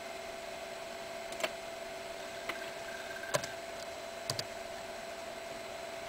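Scattered clicks of a computer keyboard and mouse, about five in all with a close pair about two-thirds of the way in, over a steady faint electrical hum.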